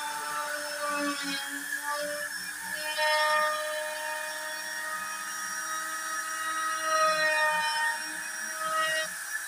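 Trim router spindle on a DIY CNC machine running at high speed while carving a pattern into a laminated MDF panel: a steady whine whose pitch shifts a little as the cut goes, swelling louder a few times.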